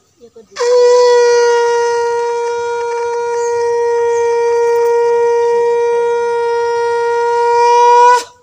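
Conch shell (shankha) blown in one long, steady, held note of about seven and a half seconds, swelling louder just before it stops abruptly.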